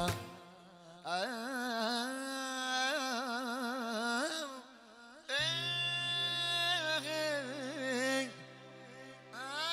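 Albanian folk music: a single ornamented melody line with wide vibrato and turns, joined about five seconds in by a steady low drone beneath it.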